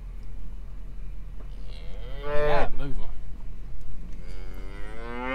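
Black Angus cattle mooing twice, two long calls, the second starting about four seconds in and bending slowly in pitch, over a steady low hum.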